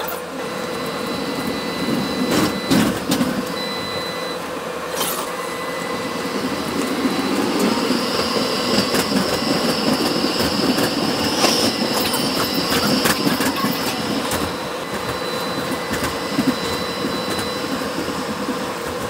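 Melbourne tram running along its track, heard from inside the passenger cabin: a steady rolling rumble with a few sharp knocks from the wheels and rails. A high-pitched whine comes in about eight seconds in and fades out around fifteen seconds in.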